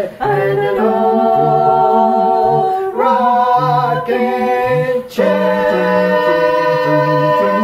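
Song with voices singing long held notes in harmony over a steady, repeating bass line, the chord changing every second or two, with short breaks about 3 and 5 seconds in.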